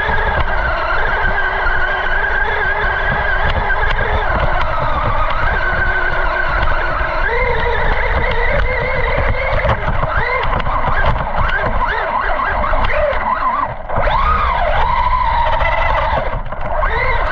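Traxxas Rustler 4x4 VXL RC car driving, heard from a camera mounted on the car: its brushless motor and gears whine, rising and falling in pitch with the throttle, over a steady low rumble of tyres and wind. The whine drops off briefly twice near the end.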